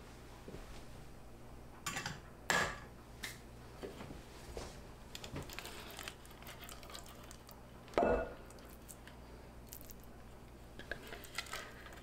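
Silicone spatula scraping thick walnut paste out of a food processor bowl into a glass mixing bowl: scattered soft scrapes and light knocks, the loudest knocks about two seconds in, again half a second later, and about eight seconds in.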